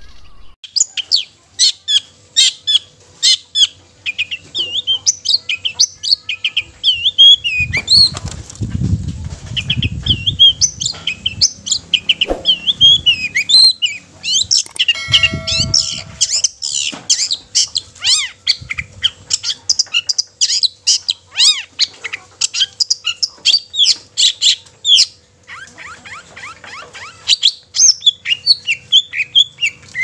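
Long-tailed shrike (cendet) singing loudly, a fast, continuous run of short, quickly changing high notes: the full, energetic 'gacor' song meant to stir other cendet into singing. Low thumps break in around eight and fifteen seconds in.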